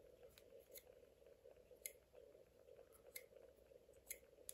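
Near silence with a steady faint hum and a handful of faint, sharp clicks about a second apart, from a small ESC cooling fan being handled.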